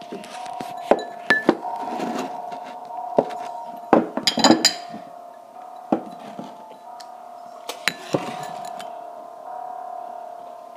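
Scattered sharp knocks and light clinks from a phone being handled and moved about close to its microphone, over a steady hum; a cluster of louder knocks comes about four seconds in.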